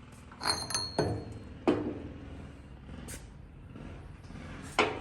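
A handful of sharp metallic clanks and knocks, about five spread over a few seconds, the first ringing briefly. The saw motor is not running.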